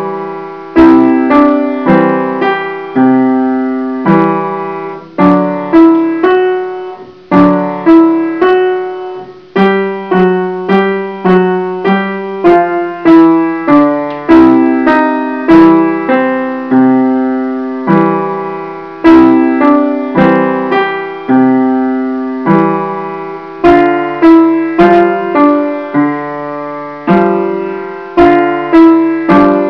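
Young Chang upright piano played with both hands: notes and chords struck one after another at a steady, moderate pace, each ringing and fading before the next.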